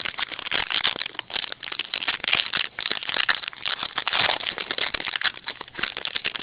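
A trading-card pack's wrapper crinkling and crackling as it is opened by hand, with the cards rustling as they are handled, in a rapid, uneven run of small crackles.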